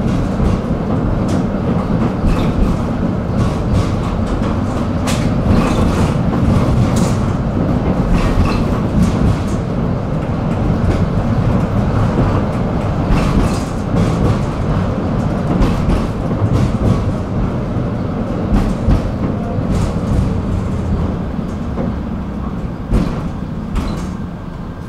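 Tram running along its rails: a steady low rumble of wheels and running gear, with scattered short clicks and knocks from the wheels passing over rail joints and track pieces. It grows quieter over the last few seconds.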